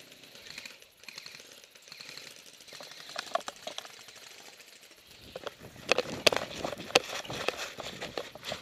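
Airsoft gunfire: a quick, irregular cluster of sharp cracks and clacks over the last three seconds, after a stretch of faint rustling.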